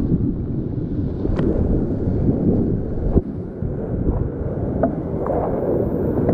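Whitewater rapids rushing around a kayak, a deep, steady rush of water, broken by a few sharp knocks or splashes from the paddle, the strongest about three seconds in.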